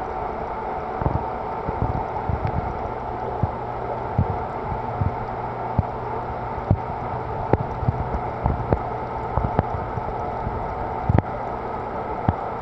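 Steady rushing noise from the reef aquarium's water circulation, with a faint low hum and irregular soft low thumps throughout.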